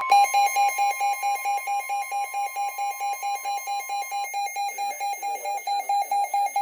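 Weather radio warning alert: rapid electronic beeping, about five beeps a second, over the steady NOAA Weather Radio warning alarm tone. The steady tone cuts off about four seconds in while the beeping goes on. It signals that a warning, here a flash flood warning, is about to be read.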